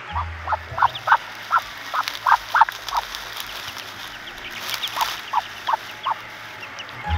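Waterfowl calling in short, quick calls that come in clusters, thinning out about halfway through before picking up again near the end.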